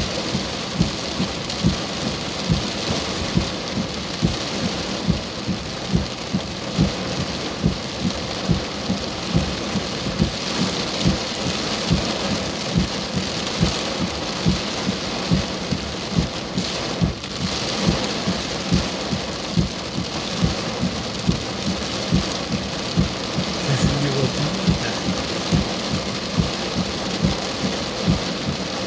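Heavy rain falling steadily, with large drops knocking close by about once or twice a second.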